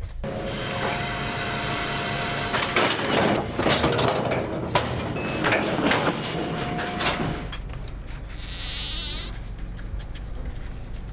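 A steady hiss for the first couple of seconds, then a run of sharp clanks and rattles of steel livestock gates and chute panels as wood bison are moved through the handling pens.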